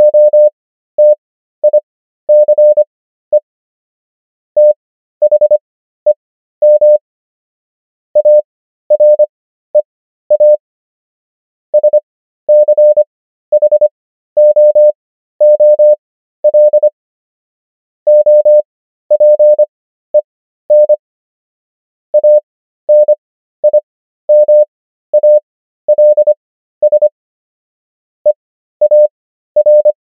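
Morse code practice tone: a single steady beep keyed on and off in short dots and longer dashes, sent at 25 words per minute character speed with wide Farnsworth gaps between words, spelling out common English words one at a time.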